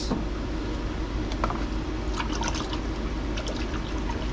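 Water trickling and dripping in a hydroponic bucket of nutrient solution, with a few faint splashes over a steady low hum.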